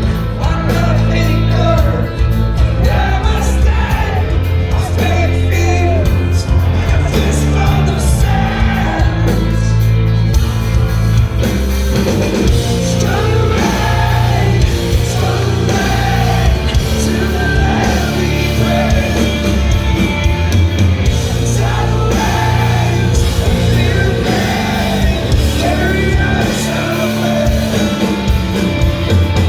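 Live rock band playing loud, heavy rock with a full low end, with a lead vocalist singing over it.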